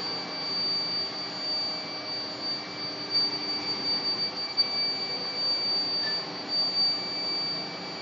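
Induction melting furnace running under power with a crucible of molten metal: a steady high-pitched whine with a lower hum and a rush of noise beneath it.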